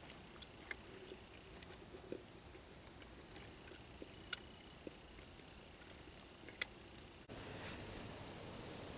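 Quiet chewing and lip and finger smacking from a man eating meat with his fingers, with two sharper smacks about four and six and a half seconds in. Near the end it cuts to an open wood fire hissing with a few crackles.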